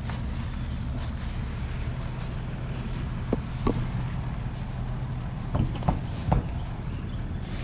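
An engine running steadily at a low, even pitch, with a few short, sharp knocks between about three and six and a half seconds in.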